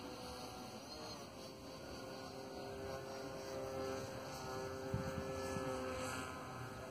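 Zagi flying-wing RC model plane's motor and propeller running in flight overhead, a steady whine whose pitch drifts slightly as it passes. A short low rumble about five seconds in.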